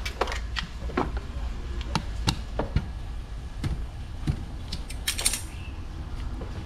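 Small hardware parts being handled and set down: scattered, irregular clicks and knocks, with a brief rattling cluster about five seconds in.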